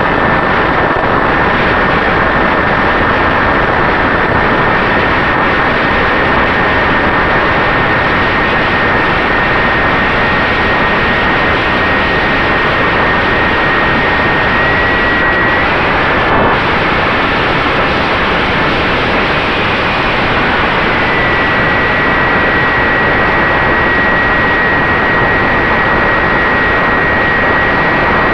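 Brushless electric motor (Turnigy 3542 1450kv) spinning an 8x4 propeller on an FX-61 Phantom flying wing: a steady high whine over loud wind rush on the onboard camera's microphone. The whine's pitch climbs slightly about halfway through, drops back, and climbs again later as the throttle changes.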